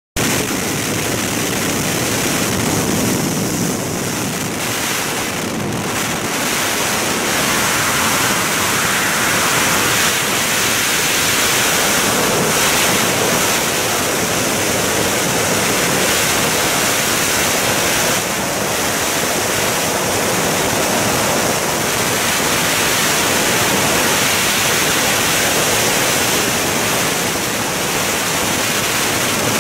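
Steady rushing of freefall wind blowing over a skydiver's camera microphone.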